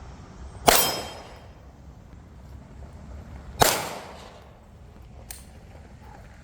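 Two gunshots about three seconds apart, each followed by a long echoing tail, then a much fainter sharp crack about five seconds in.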